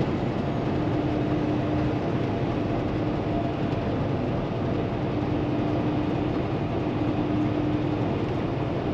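Steady cab-interior drone of a Kenworth T680 semi truck cruising at highway speed: its PACCAR MX13 diesel engine running under road and wind noise, with a faint steady tone through it.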